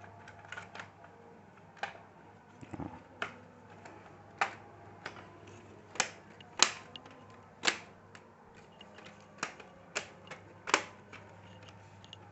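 A dozen or so sharp, irregular clicks and taps from the plastic parts and connectors of a laptop being handled and fitted together during reassembly.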